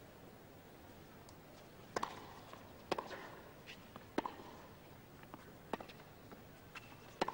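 Tennis rally: sharp pops of the rackets striking the ball about every one to one and a half seconds, with softer ball bounces on the court between the hits.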